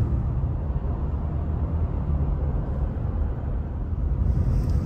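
Steady road noise of a moving car heard from inside the cabin: a low, even rumble of tyres and engine.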